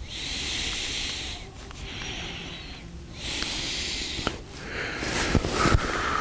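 A person blowing hard on campfire embers in three long puffs, with small crackles from the fire. A steady high whistling tone begins near the end.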